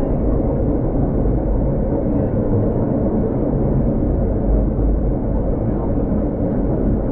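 Old tram running, a steady low rumble of the car and its wheels on the rails.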